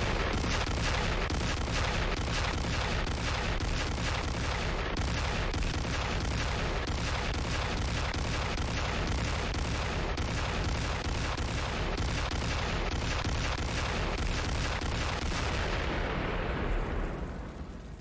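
Cartoon sound effect of a gasoline-fuelled house explosion: a long, continuous string of blasts and rapid cracks over a deep rumble, dying away near the end.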